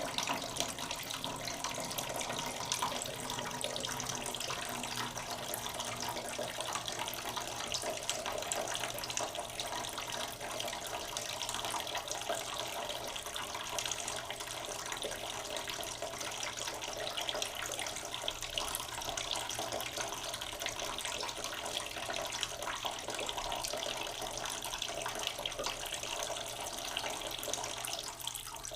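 Water running steadily from a tap and splashing into a basin.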